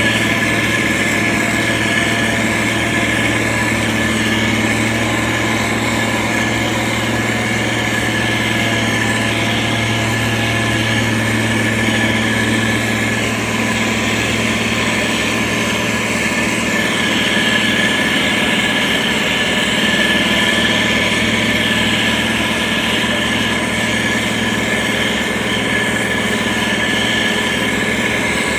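Diesel engine of a SANY STG190C-8S motor grader running steadily, with a constant high whine over the engine hum.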